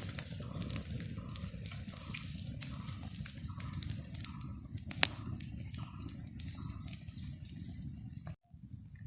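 Forest ambience: an unseen animal repeats a short call roughly every half second over a high insect buzz, with one sharp snap about five seconds in. After a break near the end, a loud, steady cricket trill starts.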